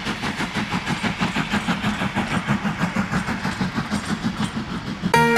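Steam locomotive working, its exhaust beats coming in a quick, even rhythm of about four to five chuffs a second. Music cuts in abruptly near the end.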